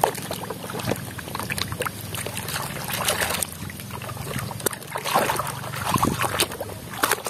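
Muddy, soapy water in a basin splashing, sloshing and trickling as a hand swishes and rubs a plastic toy truck through it, in uneven bursts that are heaviest about three seconds in and again around five to six seconds.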